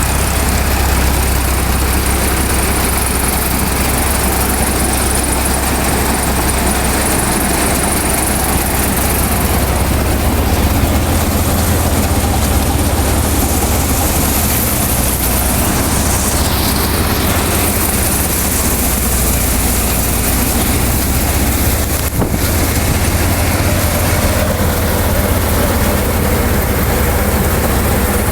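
Tractor-mounted Vikas 325 mini combine harvester running steadily: the tractor engine's low, even hum under a dense mechanical rush from the harvester's moving works, the machine cutting and threshing paddy.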